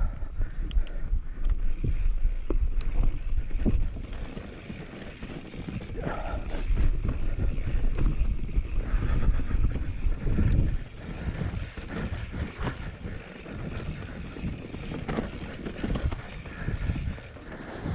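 Mountain bike descending a dry, rocky dirt trail: wind buffeting the microphone over the tyres crunching and the bike knocking and rattling over bumps. The rumble is heavier in the first few seconds and again in the middle, easing off in the last third.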